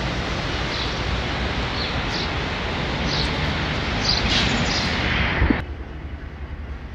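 Busy street ambience: a steady wash of traffic noise with birds chirping over it, short high chirps every second or so. About five and a half seconds in it cuts off abruptly to a much quieter indoor background.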